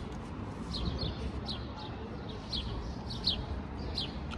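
A small bird chirping over and over in short falling chirps, one or two a second, some in quick pairs, over a steady low rumble of outdoor background noise.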